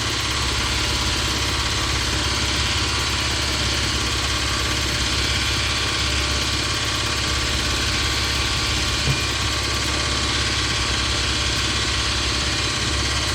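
Power grinder running steadily, grinding down the rivet heads of a link on an ATV drive chain to take the link off. It gives a constant motor hum under a dense grinding hiss.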